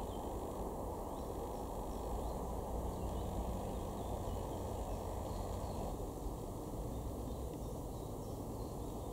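Steady low outdoor background rumble, with a few faint, short high chirps scattered through it.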